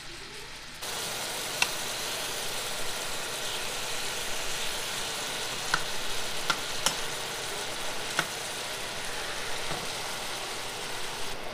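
Bluefish fillets sizzling in hot oil in a nonstick frying pan, the sizzle suddenly louder about a second in. A spatula clicks against the pan a few times as the fillets are turned.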